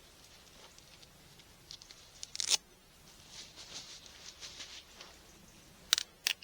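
Handling noises as the Mauser K98 rifle is loaded by hand: a short scrape about two and a half seconds in, faint rustling after it, and two sharp clicks close together near the end. No shot is fired.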